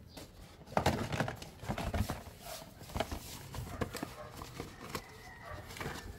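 Cardboard Happy Meal box being pulled open by hand: irregular crinkling, tearing and rustling of the cardboard and packaging, starting about a second in.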